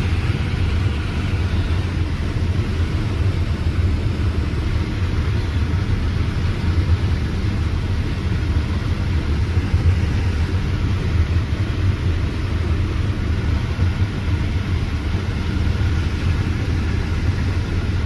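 Diesel farm machinery, a grain cart tractor or combine, running steadily: a constant low engine hum under an even mechanical rushing noise.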